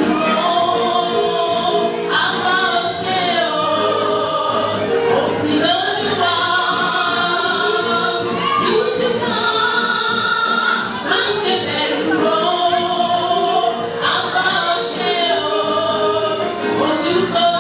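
Church choir singing a gospel praise song, with long held notes.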